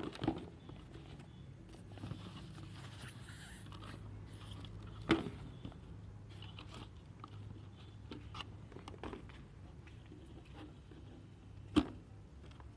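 Rustling and crinkling of cardboard and packaging being handled while unpacking, with scattered small clicks. Three sharp knocks stand out: one at the start, one about five seconds in, and the loudest near the end.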